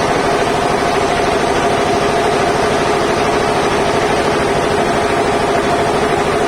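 Large engine running steadily, with a fast even pulsing underneath a constant hum.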